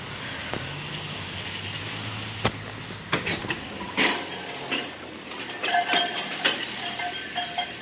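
Clicks and clattering knocks as a person walks in through a store's glass entrance doors, then a tune of short repeated notes from the store's music starts about six seconds in.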